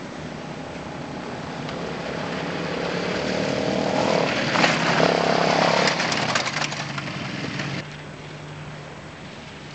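Quad bike (ATV) engine approaching and passing close by. Its sound grows to a peak about halfway through, with a run of clicks while it is loudest, then drops off sharply near the end as it moves away.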